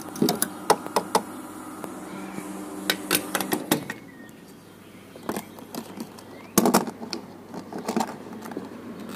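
Petrol pump humming as a fuel nozzle is handled with sharp clicks and clunks; the hum stops a little before halfway as the nozzle is hung back on the pump. Later, a cluster of clicks and knocks as the fuel cap is screwed on and the filler flap shut.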